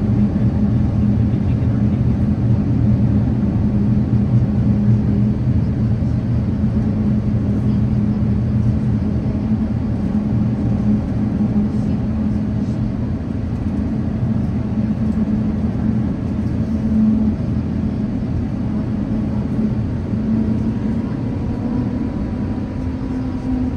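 Cabin rumble of an Airbus A350-900 standing still on the taxiway with its Rolls-Royce Trent XWB engines at idle: a steady low drone with a hum. The hum rises slightly in pitch near the end.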